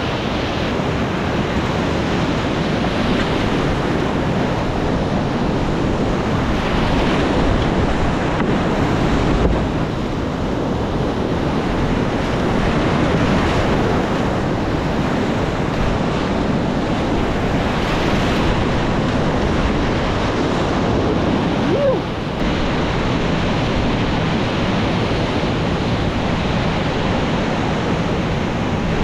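Loud, steady rush of high-water whitewater rapids heard from a kayak on the river, with wind on the microphone.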